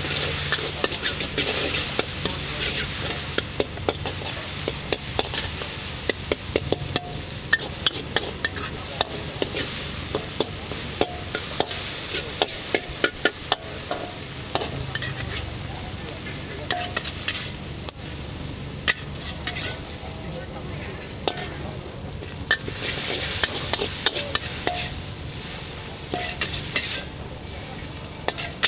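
A metal spatula scraping and clanking against a wok as char kway teow (flat rice noodles) is stir-fried, over a steady sizzle. The spatula strikes come in quick runs, and the sizzle swells at the start and again about 23 seconds in.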